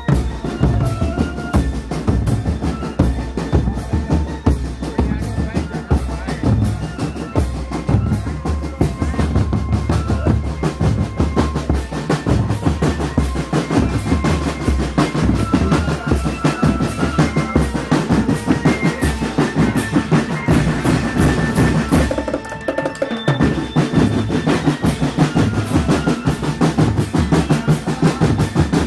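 Marching drum band playing: snare drums and bass drums beat a fast, steady rhythm with rolls, while short high melodic notes sound over them. The playing thins briefly about three-quarters of the way through, then goes on.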